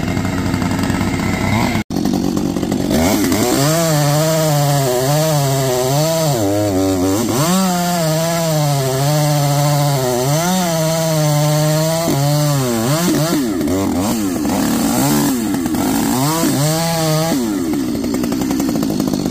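Large Husqvarna two-stroke chainsaw running and cutting into a stump, its engine pitch repeatedly rising and falling as the throttle and load change.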